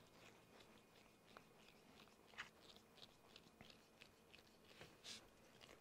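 Faint, scattered small clicks and scrapes of a hand hex driver turning small screws into a plastic RC drive assembly.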